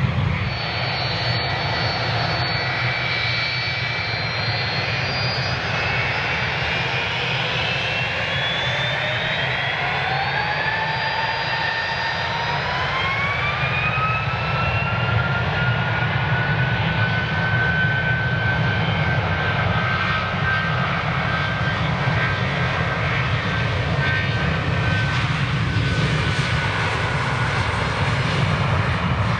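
Jet airliner's turbofan engines spooling up for takeoff: a whine that climbs in pitch for several seconds from about a quarter of the way in, then holds steady at takeoff thrust over a continuous low rumble.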